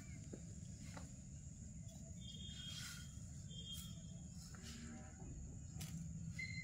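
Faint rural outdoor ambience: a steady high insect drone, with a few soft scrapes as a monkey's hand pushes sand into a steel plate. A couple of brief bird chirps come around the middle.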